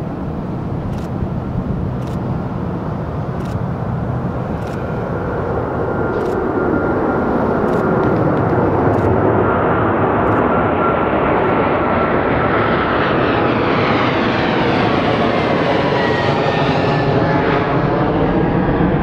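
Boeing 777-200's twin turbofan engines at takeoff thrust as the airliner lifts off and climbs away: a broad jet roar that grows louder over the first several seconds, with a steady whine in it. Near the end the roar takes on a sweeping, phasing sound.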